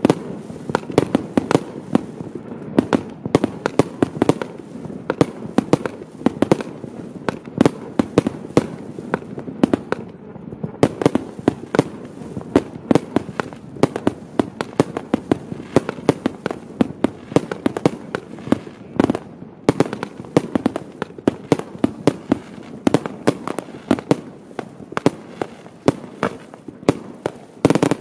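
Celtic Fireworks 'Spiders Web' single-ignition firework firing shot after shot, with aerial bursts going off overhead. It is a rapid, irregular run of bangs and pops, several a second, over a steady crackle, with a louder burst near the end.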